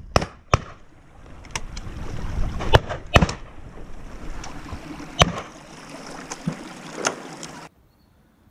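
Shotgun shots cracking out at irregular intervals, some near and some distant, the loudest a pair about three seconds in, over wind rumbling on the microphone; the sound cuts out near the end.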